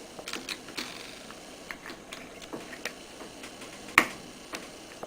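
Light handling clicks and taps, then one sharp click about four seconds in: the boot cover of an EasyclicK battery terminal connector snapping into place.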